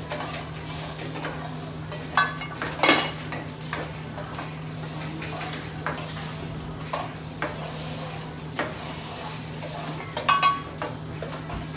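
Metal spoon scraping and clinking irregularly against a wok as mushrooms and onions are stirred and fried toward caramelised, with a light sizzle. A steady low hum from the kitchen extractor hood runs underneath.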